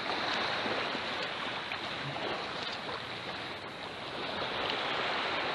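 Surf washing on the shore, a steady hiss of breaking water.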